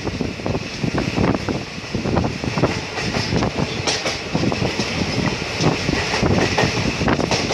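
Train running along the track: a steady rumble with frequent, irregular knocking of wheels over the rails.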